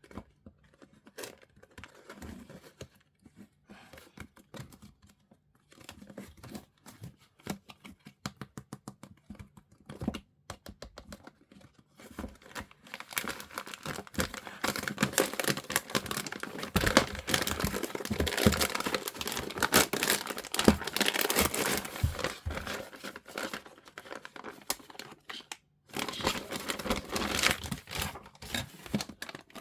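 Plastic bags and packaging crinkling and rustling as they are handled and unpacked. For the first dozen seconds there are scattered crackles and clicks, then dense continuous crinkling, which breaks off briefly near the end and starts again.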